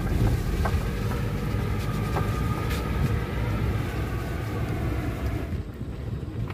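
Steady low rumble of a vehicle rolling along a wet road, road and wind noise, with a faint thin whine through the middle and a few light ticks.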